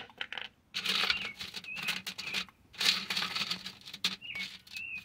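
Small ore rocks rattling and scraping on a wire-mesh sifting screen as a hand rakes through them, in two spells of dense clicking of a second or two each. A bird chirps a few times.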